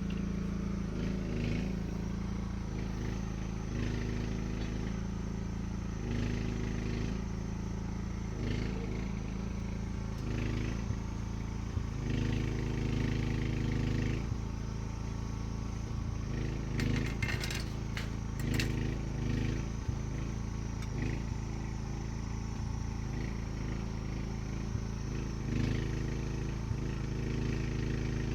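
An engine running steadily, its note shifting every second or two, with a few sharp clicks or knocks around the middle.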